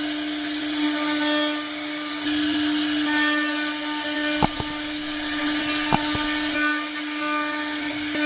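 CNC router spindle running with a steady whine while the bit cuts wood, a hiss of cutting noise over the tone. Two sharp clicks about halfway through.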